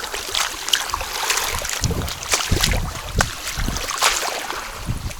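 Sea water lapping and splashing at the shoreline, with wind gusting on the microphone in uneven low rumbles.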